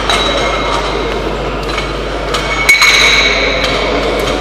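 Metal weight plates on a barbell clanking as the plates are changed. There are a few sharp metal knocks that ring on briefly, the loudest about two-thirds of the way through.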